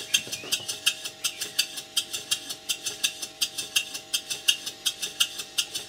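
Stuart Models Twin Victoria twin-cylinder model steam engine running slowly on compressed air on its first test run, giving a rapid, even beat of about five exhaust puffs and clicks a second, with a faint steady tone underneath.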